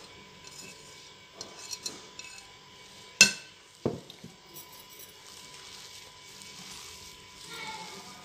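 Kitchen utensils clinking against a bowl while a mashed-potato and spice mixture is stirred, with a few light clicks, one sharp clink about three seconds in and a smaller one just after, then soft mixing sounds.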